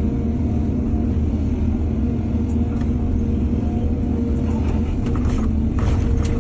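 Excavator's diesel engine running steadily, with irregular clattering and scraping starting about halfway through.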